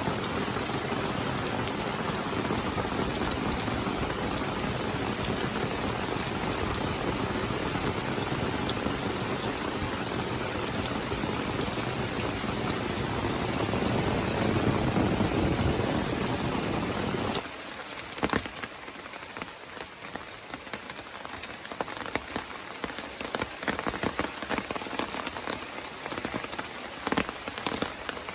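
Rain falling steadily as a dense hiss, then about two-thirds of the way through it drops suddenly to a lighter patter of separate drops.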